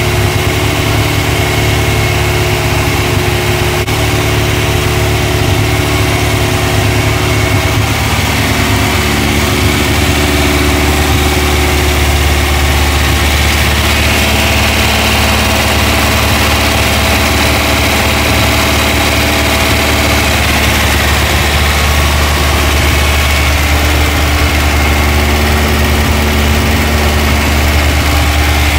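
Freshly built 2054 cc air-cooled Volkswagen flat-four stroker engine running steadily on a run stand during its cam break-in.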